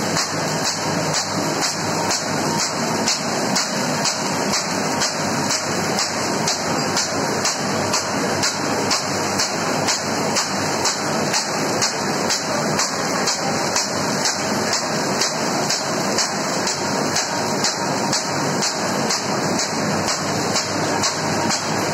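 Fully automatic paper bag machine running: a steady mechanical clatter with an even beat of about two strokes a second.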